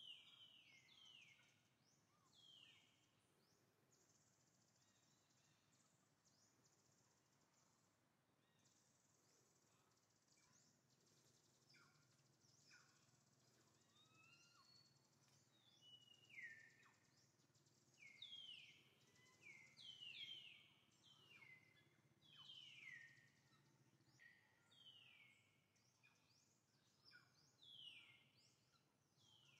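Faint bird calls over quiet outdoor ambience: short chirps that each sweep down in pitch, often in quick runs of two or three, coming more often in the second half.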